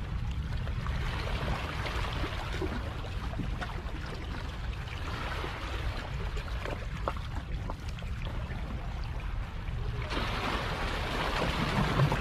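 Harbour water lapping against a rocky shoreline, with a steady low rumble underneath. The water sound grows louder about ten seconds in.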